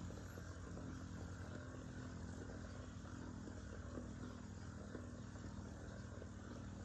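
Metal Fight Beyblade tops, including MF-L Aquario 90MF, spinning in a stadium: a steady low whir with a few faint light clicks as they touch.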